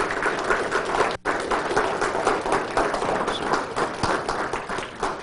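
Audience applauding: many hands clapping in a dense, steady patter, with a brief dropout about a second in.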